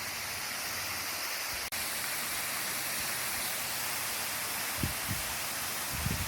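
Waterfall rushing with a steady, even hiss of falling water, with a momentary dropout about two seconds in and a few short low thumps near the end.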